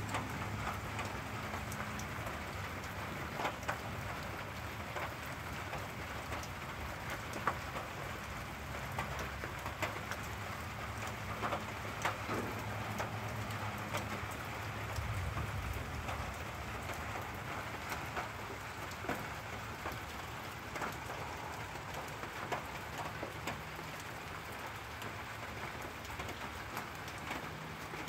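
Steady rain of a thunderstorm, with many sharp drips ticking close by and a low rumble of distant thunder swelling about halfway through.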